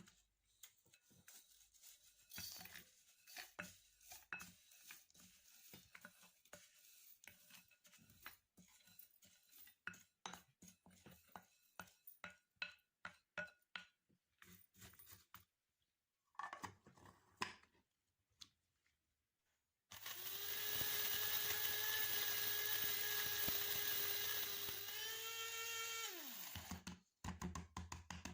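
A run of light clicks and knocks for the first half. Then, about twenty seconds in, a small electric motor, of the kind in a kitchen blender or grinder, runs steadily for about six seconds and winds down with a falling pitch.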